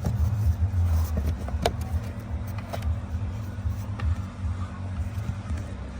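A few sharp clicks and taps of hand tools and plastic trim as screws and small covers come off the underside of a car dashboard, over a low steady hum.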